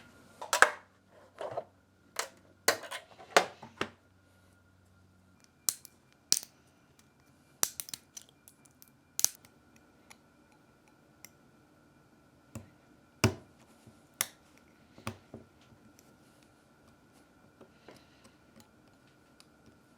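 Irregular sharp clicks and snaps of a hand tool picking and snipping support material off a small 3D-printed part, a few loud cracks among quieter ticks. The support is tightly bonded to the part and comes away only with effort.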